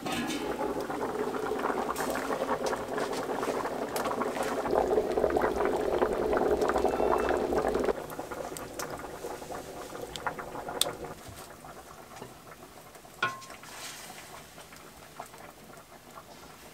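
A large stainless steel pot boiling hard over a wood fire, with loud steady bubbling. About eight seconds in the sound drops to a quieter simmer with scattered crackles from the burning wood.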